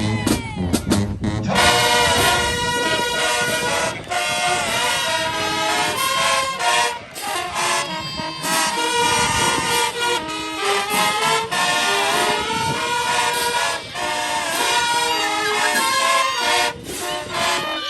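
High school marching band playing, its brass section holding loud sustained chords over drumline hits. The full horn sound comes in about a second and a half in.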